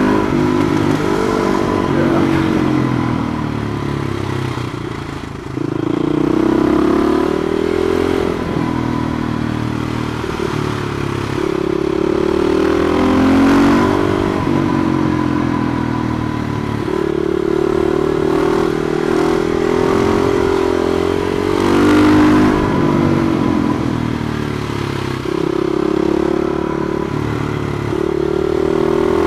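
Husqvarna SMR 510 single-cylinder motorcycle engine under way, its revs climbing and dropping again and again as it accelerates between bends and backs off into them.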